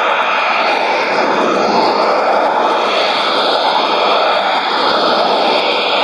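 Shortwave receiver's speaker giving out a steady hiss of white noise mixed with digital noise on the 17630 kHz channel, with faint sweeping tones in the noise.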